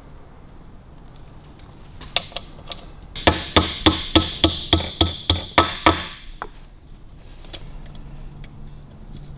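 Hammer tapping a stud through the joined crankcase halves of a Harley-Davidson WLC 45ci engine: a few light taps about two seconds in, then a quick run of about ten sharp strikes over some three seconds, with a ringing tone.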